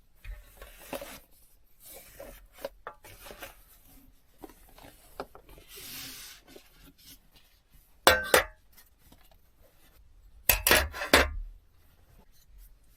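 Objects being handled up close: rubbing and scraping with light clicks and clinks, and two louder bursts of clatter, one about eight seconds in and another around eleven seconds.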